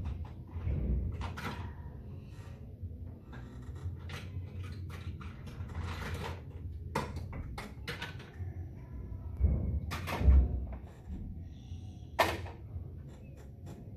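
Gymnastics gym ambience: scattered knocks and thuds of people training, over a low steady rumble, with heavy thuds about ten seconds in and a sharp knock a couple of seconds later.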